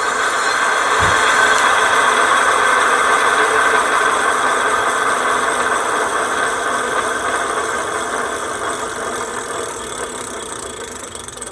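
E-bike hub motor spinning the wheel under throttle, powered by a repaired 1200 W Ebikeling controller, now running smoothly. It runs steadily, then gradually gets quieter toward the end.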